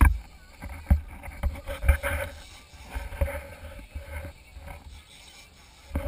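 Noise on a fishing boat's deck at sea: irregular low thumps and knocks, the loudest right at the start and about 2 s in, over a faint steady hum.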